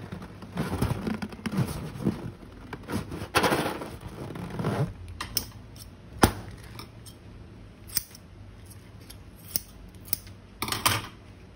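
Scissors snipping, a few sharp cuts spread through the second half, after several seconds of crinkly handling noise.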